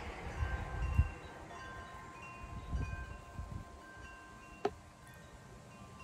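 Wind chime tinkling, with scattered light ringing tones over a low rumble of wind on the microphone. One sharp click comes about three-quarters of the way through.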